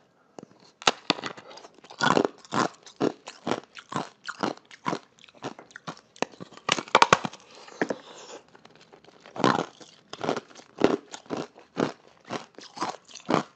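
Bites of a heart-shaped block of ice with pomegranate seeds frozen in it, crunched and chewed close to the mouth: a string of sharp crunches about twice a second, with a short pause about eight seconds in.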